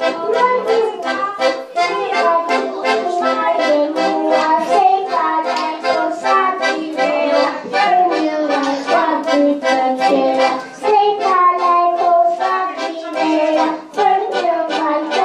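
A child singing into a microphone over instrumental music with a steady beat.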